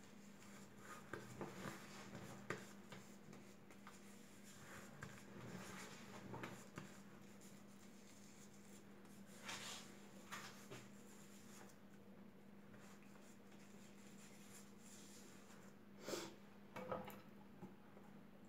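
Near silence: quiet room tone with a faint steady hum and scattered soft clicks and rustles of small objects being handled, a few a little louder about two seconds in and near the end.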